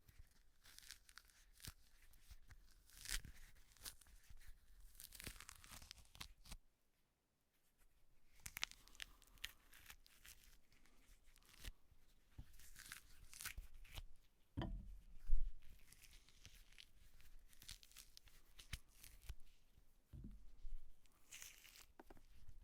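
Something being peeled, in a series of short ripping pulls with pauses between them. There is a brief total silence about a third of the way in and a low thump about two-thirds of the way in.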